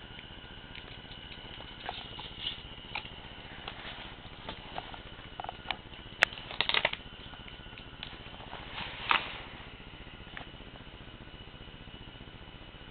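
Irregular light taps and clicks from small objects being handled, with one sharp click about six seconds in and short flurries after it and again near nine seconds, over a steady hiss.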